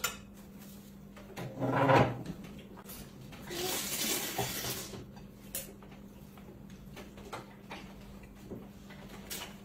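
Noodles being eaten at a table: light clicks of chopsticks and spoons on plates, a brief low vocal sound at about one and a half to two seconds in, then a long slurp of noodles from about three and a half seconds in.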